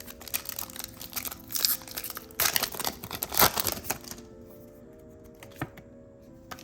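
A foil trading-card booster pack wrapper crinkling and being torn open over the first four seconds, loudest a little past the middle, then dying away. Soft background music plays throughout.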